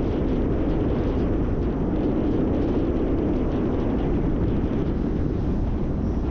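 Steady road noise of a vehicle driving: an even engine and tyre rumble with some wind.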